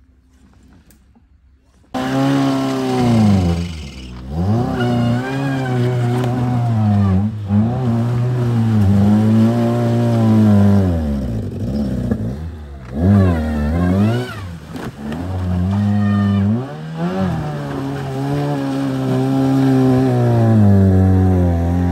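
Peugeot 106 car engine revved hard in repeated surges as the car strains up a muddy slope, its pitch climbing and dropping every few seconds. It starts suddenly about two seconds in.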